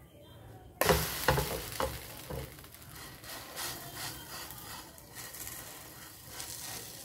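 Chocolate pancake flipped onto a hot non-stick frying pan: frying sizzle starts suddenly about a second in, with a few knocks of the spatula against the pan over the next second and a half. The sizzle then carries on more quietly while the spatula presses the pancake.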